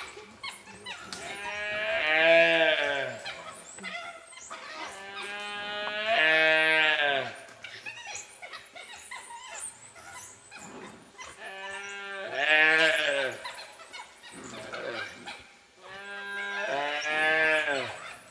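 Gaur calf bawling in distress while dholes attack it: four long, wavering bleat-like cries about every five seconds, each rising and then falling in pitch.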